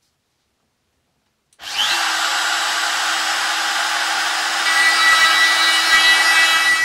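Silence, then about a second and a half in a Makita trim router switches on and spins up to a steady whine. From about halfway an added sharper tone joins and it gets slightly louder as the spinning bit is pushed up through a thin MDF plate to make a zero-clearance opening.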